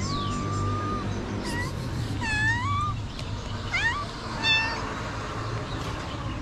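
Stray cats meowing for food, about five meows. The first is long and even, and a couple of the later ones rise in pitch. A steady low rumble runs underneath.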